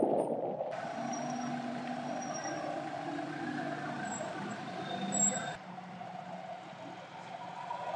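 Road traffic: vehicle engines running along a busy town street, with a short, louder burst of noise a little past halfway.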